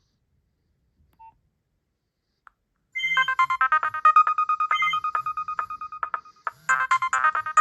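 Near silence with a single short beep about a second in, then from about three seconds a Nokia 6010 ringtone starts playing from the phone's speaker: a fast run of electronic beeping notes.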